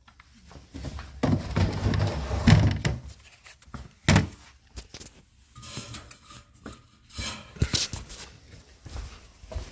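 Handling and knocking noise: a loud scraping rustle for about two seconds, a sharp thump about four seconds in, then lighter knocks and rustles.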